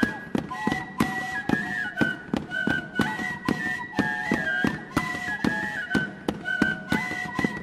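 A small ensemble of cane flutes playing a lively folk melody together, over a steady percussive beat of about two strokes a second.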